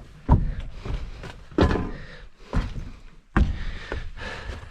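A bus door latch being worked open and shut: four sharp clunks roughly a second apart, with lighter metallic clicks between them.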